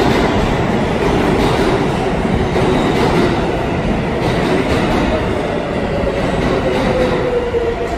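Subway train running in an underground station: a loud, steady rumble, with a whine that slides lower in pitch over the last few seconds.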